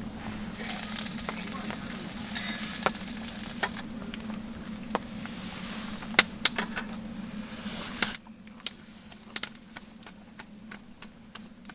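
Meat sizzling as it grills over a campfire, with sharp pops and crackles. The sizzling stops abruptly about eight seconds in, leaving quieter crackling and a steady low hum.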